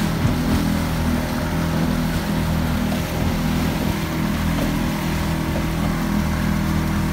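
Boat's engine running steadily under way, a constant low drone, with the rush of water and wind over it.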